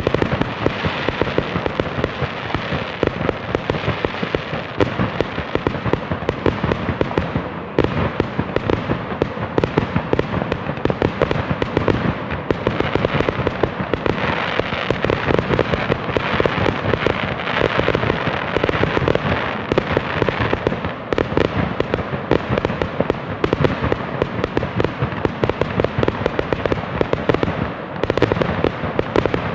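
Fireworks going off in a dense, unbroken barrage of bangs and crackles, many per second.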